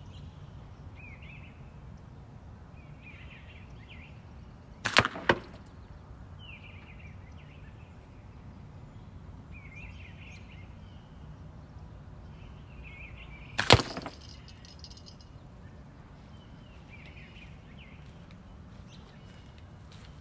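Two slingshot shots about nine seconds apart: 3/8-inch steel balls fired with 1636 rubber tubes striking the catch box, each a sharp crack. The first crack is followed a fraction of a second later by a second knock.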